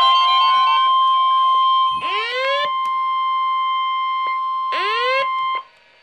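Weather alert radios sounding a Winter Storm Watch alert: the NOAA Weather Radio 1050 Hz warning alarm tone held steady, with a radio's own alarm sweeping up in pitch twice, about two seconds in and near five seconds. The tone cuts off about five and a half seconds in.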